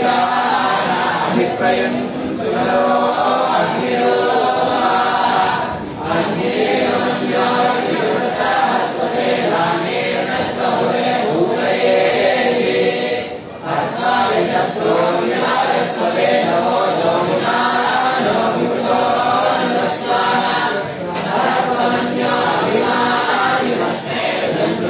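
A group of voices chanting devotional hymns together, going on almost without a break and dipping briefly twice.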